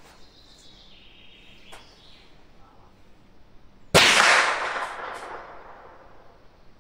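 A single rifle shot from a Mauser bolt-action rifle chambered in .300 Savage about four seconds in. The report is very loud and echoes for a couple of seconds under the covered firing line.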